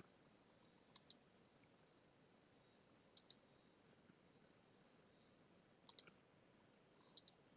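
Computer mouse button clicking: four quick pairs of clicks, about two seconds apart, over faint room hiss.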